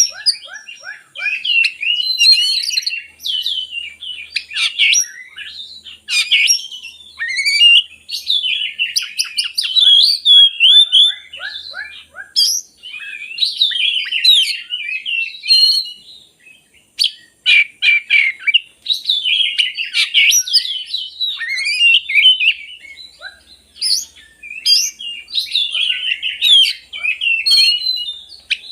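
Oriental magpie-robin (kacer) singing: a long run of varied whistled phrases, rapid note series and chatter, broken by a short pause a little past halfway.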